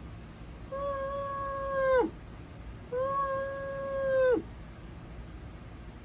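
An animated character wails in two long drawn-out notes. Each note is held at a steady pitch for over a second and then drops away at the end.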